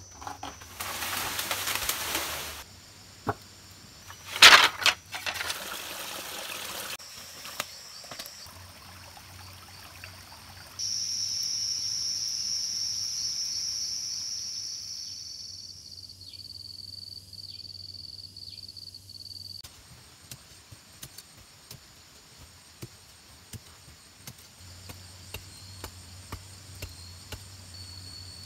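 A run of outdoor sounds: a burst of pouring or trickling water near the start, a loud sharp crack, then a steady high drone of forest insects. Near the end the insects go on under scattered scraping ticks of loose soil being dug.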